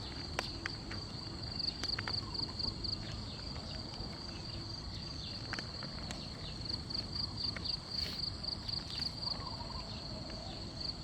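Night insects calling in a steady, high, pulsing trill, with scattered light clicks and rustles.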